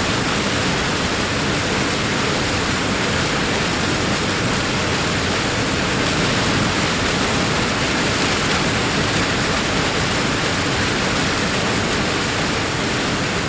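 Big waterfall: a loud, steady rush of falling water, even and unbroken.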